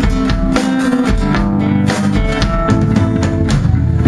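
Live indie rock band playing: strummed acoustic guitar, electric guitar, bass and a drum kit with steady beats. The band ends the song on a loud final hit at the very end.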